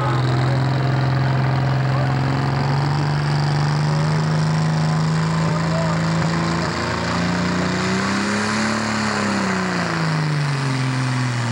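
Pro Stock pulling tractor's turbocharged diesel engine running hard at the starting line with a steady high drone, revving up about eight seconds in and dropping back near the end.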